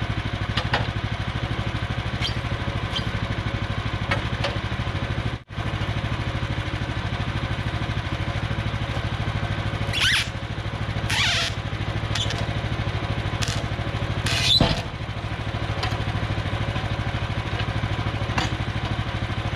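Gas engine of a Woodland Mills HM126 portable band sawmill running steadily, with brief higher scraping noises about ten seconds in and again near fifteen seconds.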